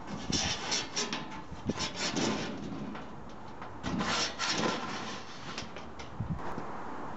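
Galvanised sheet-steel panels of a flat-pack coal bunker scraping and rubbing against each other in irregular strokes as they are slid together by hand. The scraping dies down about six seconds in.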